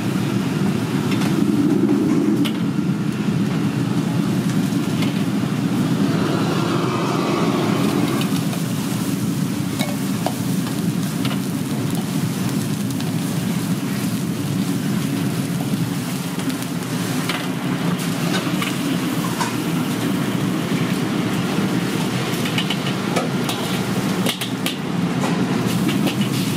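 Steady low roar of a restaurant gas wok burner and kitchen exhaust, with scattered clinks of a metal ladle and strainer against the wok.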